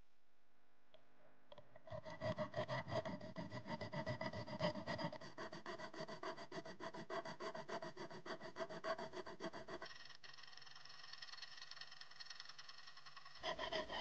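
Flat metal file rasping quickly back and forth along the edge of a homemade black, gritty key copy, shaping its profile at about five strokes a second. About ten seconds in the strokes turn lighter, then a few harder strokes come near the end.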